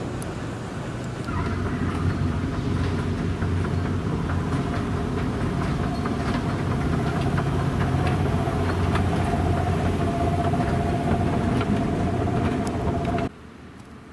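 Escalator running: a steady mechanical hum with a thin steady whine and light clicking. It stops abruptly near the end.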